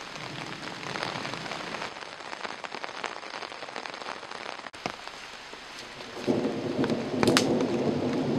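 Steady rain-like hiss with scattered light crackles. A louder rumbling swell comes in about six seconds in.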